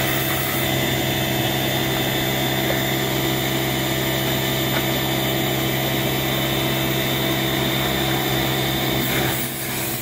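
Compressed air hissing from a blow gun as it blasts dust out of an upright vacuum cleaner, over the steady hum of the air compressor running. The sound eases slightly near the end.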